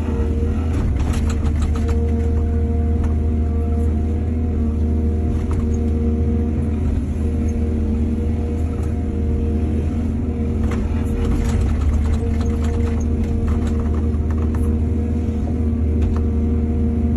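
Excavator's diesel engine running steadily with a deep hum, with spells of clattering and knocking about a second in and again from just past the middle.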